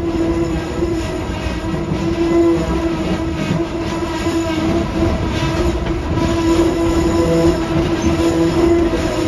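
Narrow-gauge excursion train rolling along with passengers aboard: a steady low rumble from the cars on the track, with a constant humming tone over it.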